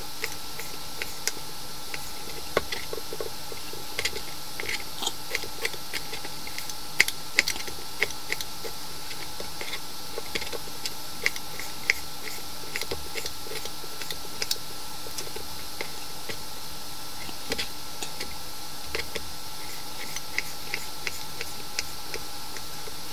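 Knife cutting pork back fat into cubes on a plastic cutting board: irregular sharp taps of the blade striking the board, over a steady background hum.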